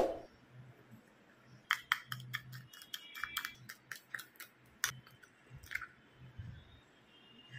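Metal spoon clinking and scraping against a small glass bowl as a coffee mixture is stirred and whipped: a quick run of light clinks for about four seconds, then a few scattered taps. A single sharp knock at the very start is the loudest sound.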